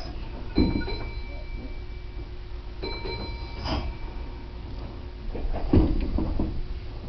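Steady low rumble and hum of a train standing still, heard from inside the carriage, with a thump about half a second in and a louder thump near the end. Twice a faint, thin high tone sounds for under a second.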